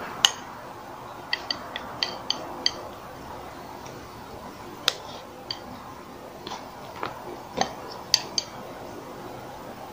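Plastic spoon clinking and tapping against a bowl while food is scooped and eaten: a scatter of light, sharp clicks, the sharpest just after the start and a quick run of them about a second and a half in.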